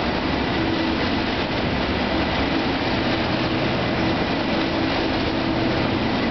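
Class 37 diesel locomotive's English Electric V12 engine running, a steady, unchanging engine note under a loud even rumble.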